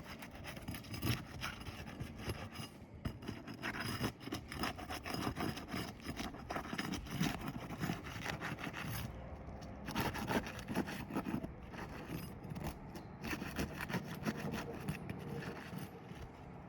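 Asphalt roof shingles being pried loose from the shingles beneath to break their adhesive seal strips, with irregular short scraping and rubbing strokes throughout.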